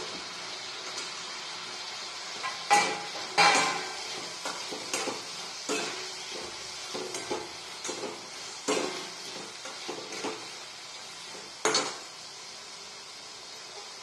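A steel spatula scraping and knocking against a metal kadai as chopped round gourd and onions are stirred, in irregular strokes with the loudest a few seconds in and near the end. A steady sizzle of frying sounds underneath.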